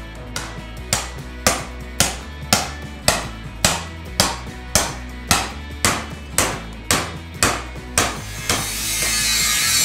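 Steel hammer blows on sheet steel clamped in a bench vise, about two a second and evenly paced, bending a flange into a rust-repair panel, over background music. Near the end the hammering stops and a steady harsh grinding hiss takes over.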